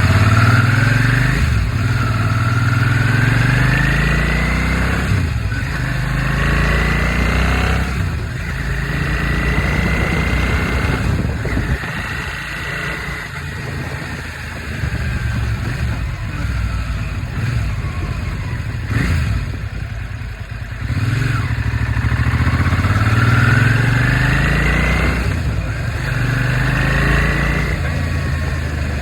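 2003 Suzuki SV650's 645 cc V-twin engine running and revving repeatedly, its pitch climbing over a few seconds and then dropping back, with a lower, quieter stretch in the middle. The owner suspects a slight rod knock.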